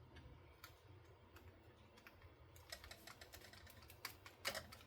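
Faint, irregular light clicks and taps, more frequent in the second half, from hands handling a small die-cut paper craft on a work surface.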